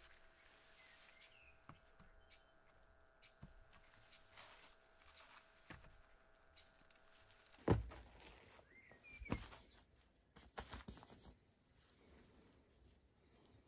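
Quiet surroundings with a few soft thuds and knocks, the loudest about eight seconds in and another a second and a half later, and a couple of faint bird chirps.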